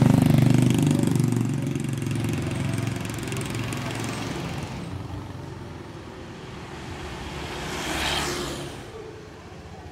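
Street traffic: a vehicle engine running close at the start and fading away over the first few seconds, then a motor scooter passing close by about eight seconds in.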